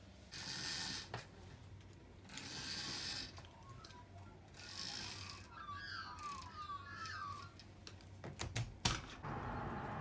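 Three short scratchy bursts of noise, then Australian magpies calling in a brief warbling phrase about six seconds in, followed by a few sharp clicks near the end.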